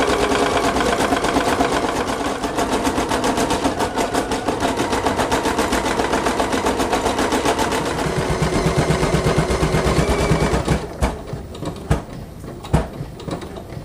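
EverSewn Sparrow X2 embroidery machine stitching out a design: a fast, even needle rhythm that stops about eleven seconds in, at the end of a thread colour, followed by a few scattered clicks.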